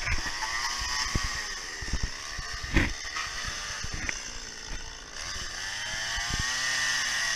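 Chainsaw revving up and down while carving wood, its pitch rising and falling, with scattered sharp clicks; it runs louder and steadier from about five seconds in.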